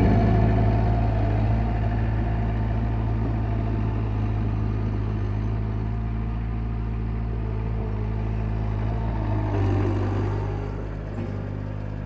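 Bobcat 751 skid steer's diesel engine running steadily as the loader drives away, the sound fading gradually. It swells briefly near the end as the machine turns.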